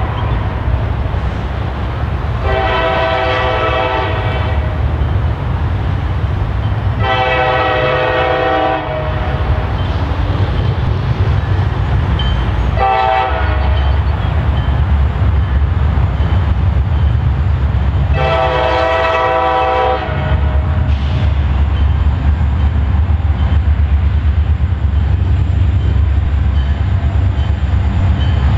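Air horn of an approaching freight train's lead EMD SD40-2 diesel locomotive sounding long, long, short, long: the standard warning signal for a road crossing. A steady low rumble runs underneath and grows louder as the train comes closer.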